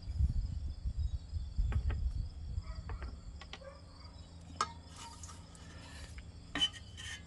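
Crickets chirping steadily in the background, with a low rumble in the first couple of seconds and a few small clicks and knocks of parts being handled.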